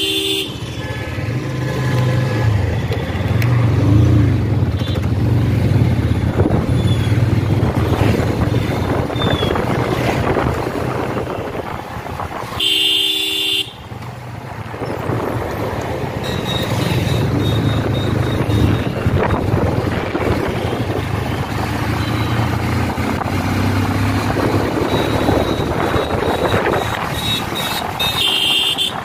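Motorcycle engine running under way with wind and road noise, its note rising and falling with the throttle. A vehicle horn sounds briefly at the start, for about a second midway through, and again at the very end.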